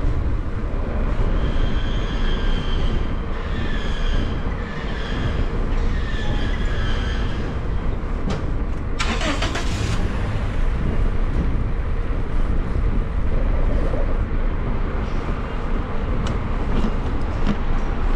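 City street traffic heard from a moving bicycle, a steady low rumble with wind on the microphone. In the first half come four or five high squeal-like tones, each about a second long. About halfway through there is one short, loud hiss of air.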